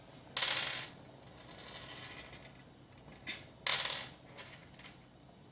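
Two short metallic clatters about three seconds apart, like small metal parts or a tool being handled or dropped, with a fainter click just before the second.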